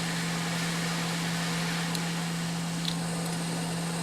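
Hot-air rework station blowing at 330 °C while an eMMC memory chip is heated off a circuit board: a steady rush of air over a steady low hum from its blower, with a couple of faint light ticks.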